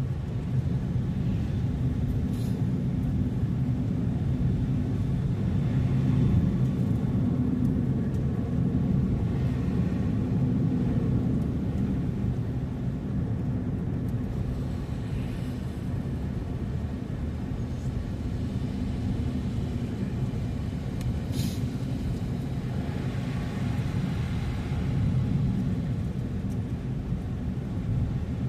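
Car driving along a road, a steady low rumble of engine and tyre noise, with a couple of faint brief ticks.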